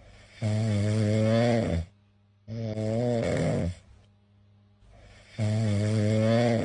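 Cat snoring: three snores, each a little over a second long, separated by quiet pauses.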